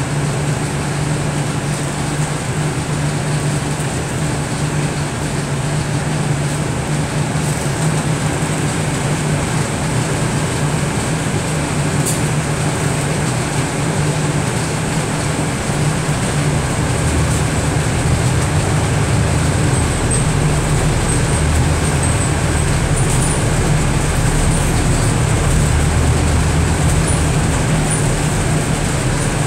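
Scania Enviro400 MMC double-decker bus running, heard from inside the upper deck: a steady engine hum with road noise. The low rumble grows stronger about halfway through.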